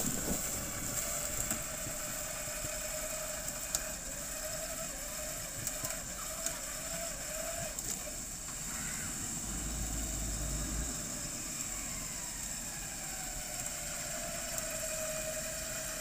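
UAZ off-road jeep's engine running while the vehicle sits stuck in a stream crossing, its note steady but wavering slightly up and down.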